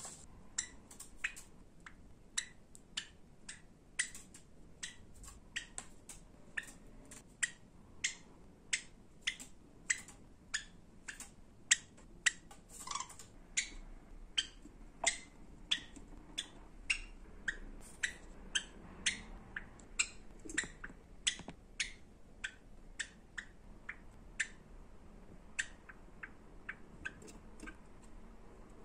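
Java sparrow giving short, sharp, high chirps over and over, about one to two a second.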